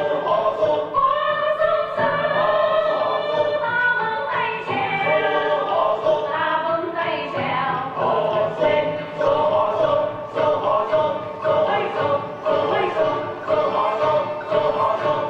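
Music with several voices singing together over accompaniment; a steady beat of percussion strikes comes in about halfway through.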